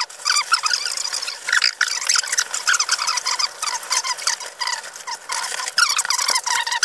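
Plastic bags and packaging crinkling and rustling continuously as kit is handled and unpacked, a dense run of sharp crackles.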